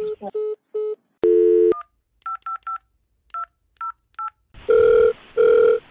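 Telephone line tones: a few short beeps, a brief buzzy tone, then a quick run of touch-tone keypad digits being dialed, followed by two long ringback tones near the end as the call rings through.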